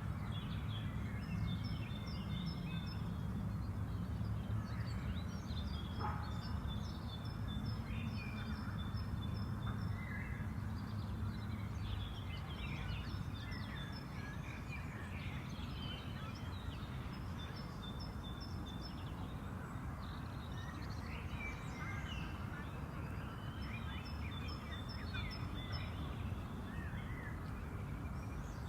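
Spring park ambience: several birds singing and calling, with rapid series of repeated high notes, over a steady low background rumble. A single sharp click about six seconds in.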